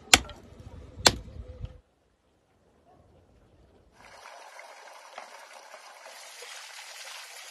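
Two sharp axe strikes splitting wood on a chopping stump, about a second apart. After a short silence, water runs and splashes steadily in a stone spring basin where a metal bowl is being washed.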